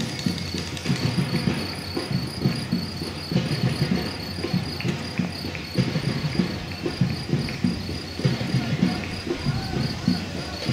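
Footfalls of many runners on a paved path, a dense, uneven patter of steps. Over it runs a steady, high, finely pulsing chirr.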